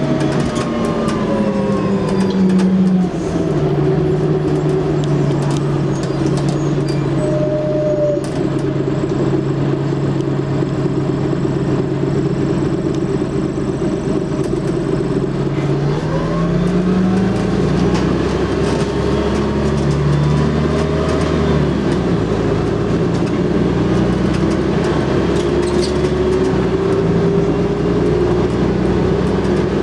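Bus diesel engine under way, heard from inside the passenger saloon over road and body noise. Its note falls over the first three seconds, holds steady for a long stretch, then climbs from about halfway, with several steps in pitch as it pulls through the gears.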